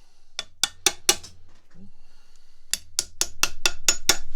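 Hammer blows on the steel of an old Peter Wright leg vise, trying to knock a stuck part free. First come four sharp metallic strikes, then a pause, then a quick run of about seven strikes.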